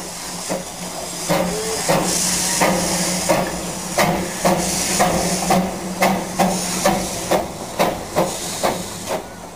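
Darjeeling Himalayan Railway saddle-tank steam locomotive No. 788 pulling away: exhaust chuffs coming quicker as it gathers speed, with loud hissing of escaping steam and a steady low hum underneath.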